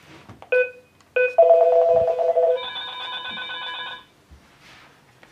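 A FERMAX DUOX video intercom calling a monitor: two short beeps from the entrance panel's keypad, then an electronic call tone that rings for about two and a half seconds, changing to a higher chime partway through before it cuts off.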